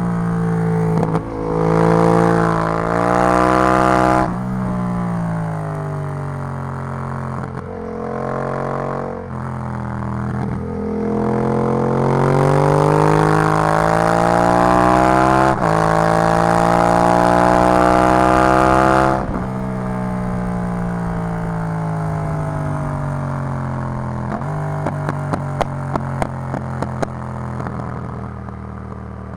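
Yamaha MT-07 parallel-twin engine through an Arrow full exhaust system, accelerating with rising revs and sudden drops in pitch at the gear changes, then one long pull that climbs steadily. The revs then fall off as the throttle closes, and a rapid run of pops and crackles from the exhaust follows on the overrun near the end.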